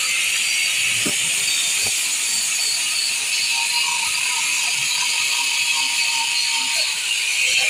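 Electric angle grinder with an abrasive disc running steadily against the rubber inside a bike tyre, buffing the inner surface around a cut to prepare it for a patch: a steady high hiss.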